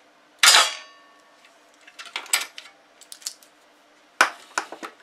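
Metal clatter from a hand-held sheet-metal chassis punch and a steel radio enclosure being handled on a bench. There is one loud clank with a short metallic ring about half a second in, then several bursts of lighter clicks and rattles.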